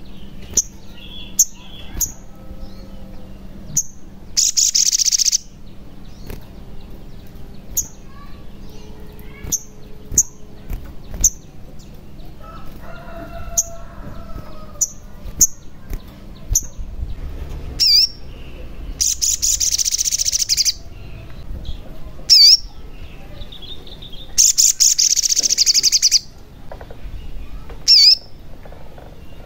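Male olive-backed sunbird singing: sharp, high chirps every second or so, broken three times by fast buzzy trills lasting a second or two.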